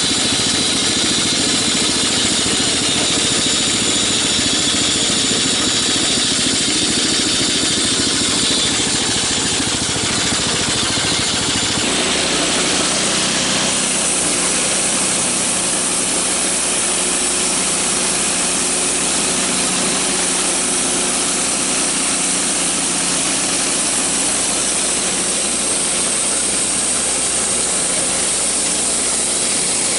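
Homemade bandsaw mill's 9.5 hp snowblower engine running steadily while the band blade cuts through a poplar log. About 12 to 14 seconds in, the low rumble drops and a higher hiss grows.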